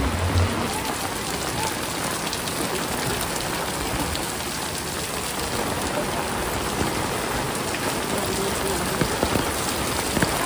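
Heavy rain pouring down steadily, a dense even hiss with scattered ticks of individual drops.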